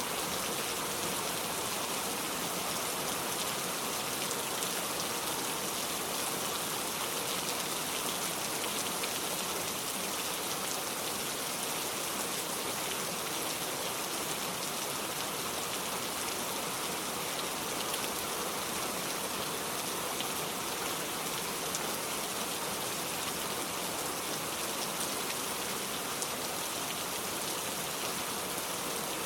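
Steady rain falling, an even hiss of drops with faint scattered ticks of individual raindrops.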